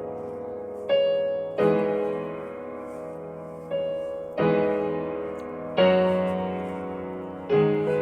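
Slow, gentle piano music: chords struck every second or two, each ringing and fading before the next.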